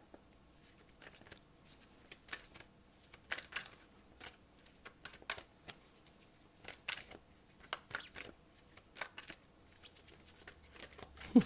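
A deck of oracle cards shuffled by hand: an irregular run of quick dry flicks and rustles as the cards slide against each other.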